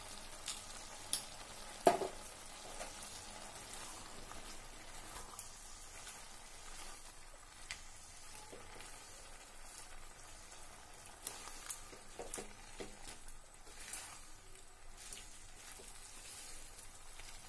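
Spinach and mixed vegetables sizzling quietly in a nonstick kadai, the liquid cooking off, while a spatula stirs them, with scattered knocks and clicks of the spatula against the pan, the sharpest about two seconds in.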